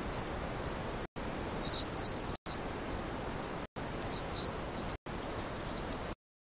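Hedgehogs squeaking: two clusters of quick, wavering high-pitched chirps over a steady hiss.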